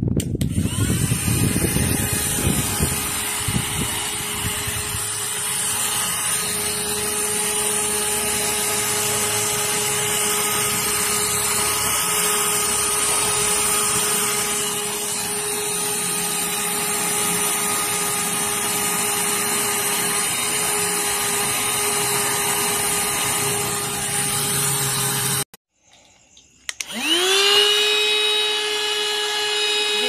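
Youmiai cordless handheld mini vacuum cleaner running, its small motor giving a steady high whine over the rush of air. It cuts off about 25 seconds in, then starts again with a rising whine as the motor spins up to speed.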